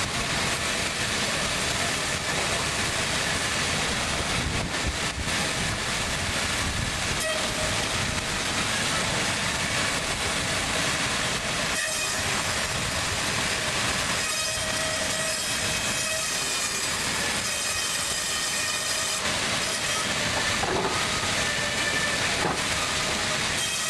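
Woodworking bandsaw running steadily: a continuous rushing machine noise with faint, level whining tones over it.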